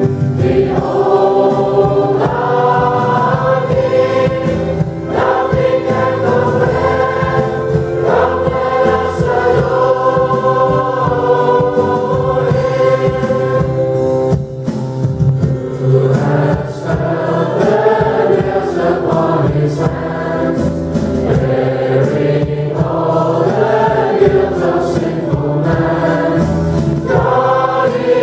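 Live worship song: several voices singing together, led by a female and a male singer, with acoustic guitar and keyboard accompaniment. The singing holds long notes in phrases, with a brief drop in loudness about halfway through.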